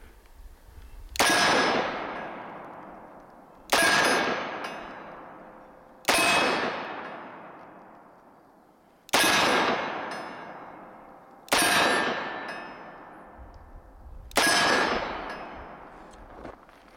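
Six shots from a Smith & Wesson 586 Classic 4-inch .357 Magnum revolver firing full-power .357 Magnum rounds, spaced about two and a half to three seconds apart. Each report rings away over a couple of seconds before the next.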